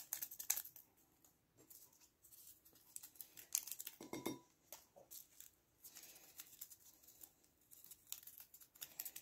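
Faint crinkling and ticking of a small paper pepper sachet being shaken and tapped as ground black pepper is sprinkled into a glass bowl. The rustles come in short, irregular spurts.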